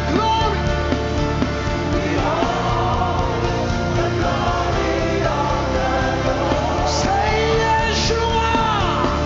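Live gospel worship music: voices singing drawn-out, sliding notes over a steady band accompaniment.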